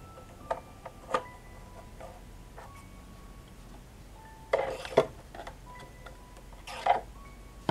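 Light plastic clicks and taps as a plastic spool cap is fitted onto an overlock machine's thread-stand spindle and thread cones are handled, with two short scraping rustles about four and a half and seven seconds in.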